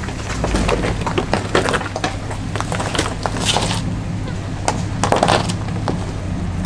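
An off-road vehicle's engine running low and steady while it crawls a rough trail, under irregular cracking and crunching, with louder crunches about three and a half and five seconds in.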